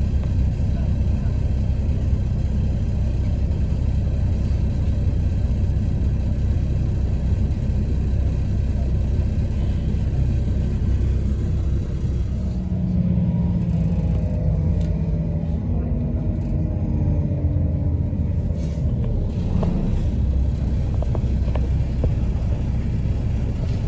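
Inside a West Midlands Railway Class 172 diesel multiple unit on the move: a steady low rumble of wheels on the track and the underfloor diesel engine. In the second half the engine and transmission tones fall in pitch as the train slows into a station.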